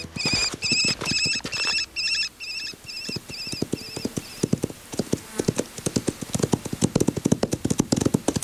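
Cartoon horse hooves galloping, a rapid clip-clop of knocks that grows denser and louder in the second half as the horses come close. Over the first half a repeated high, wavering chirp fades away.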